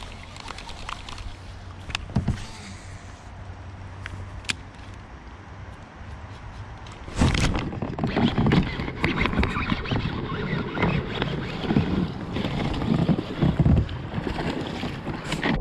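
A few sharp clicks over a low background, then from about seven seconds in, loud irregular rustling and rubbing as a hoodie sleeve drags across the chest-mounted camera's microphone.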